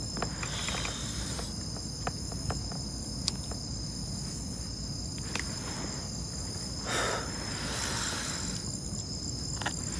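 Night insects chirring in a steady, high-pitched chorus, with a few faint clicks and a brief rustling noise about seven seconds in.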